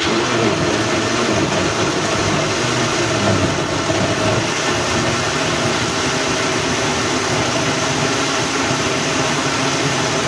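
Countertop blender switched on and running at high speed, its motor starting abruptly and blending pineapple chunks, milk, coconut and ice cream. It churns unevenly for the first few seconds while the chunks break up, then runs steadily as the mix turns smooth.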